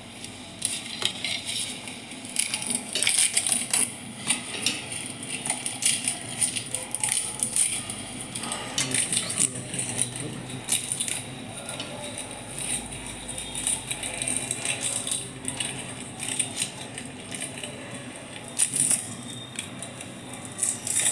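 Dried bay leaves being broken by hand into small pieces: dry leaf crackling and snapping in irregular, quick clicks.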